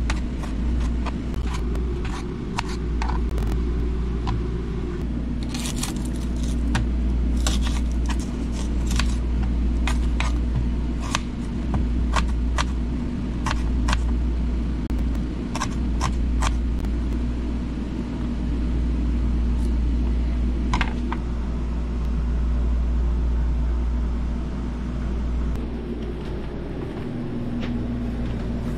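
Kitchen knife slicing vegetables on a plastic cutting board, in irregular sharp taps, most of them in the middle stretch. Under the taps runs a steady low rumble and hum.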